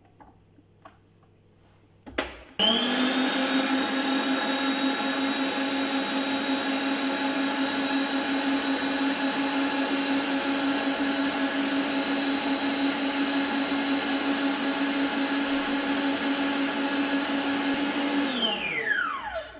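Arno stand mixer starting with a click about two seconds in, its motor whining steadily while the wire whisk whips cold cream and sugar in a steel bowl. Near the end it is switched off and the motor's pitch falls as it spins down.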